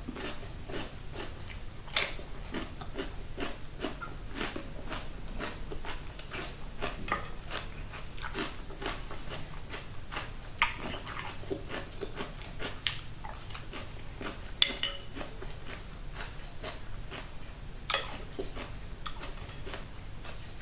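Close-up chewing and crunching of a raw cucumber dipped in honey: a steady run of small wet crunches and mouth clicks, with a few sharper, louder bites about two seconds in, near the middle and toward the end.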